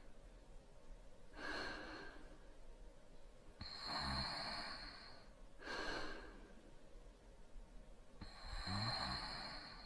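Light snoring of a sleeper: two slow breathing cycles, each a short breath followed by a longer one with a soft low flutter in it.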